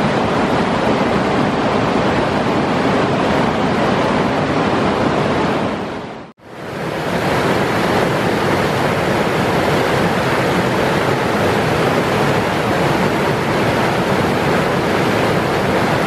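Whitewater rapids and falls on the River Tees, water rushing and tumbling over rocks in a loud, steady roar. The sound drops out briefly about six seconds in and comes straight back.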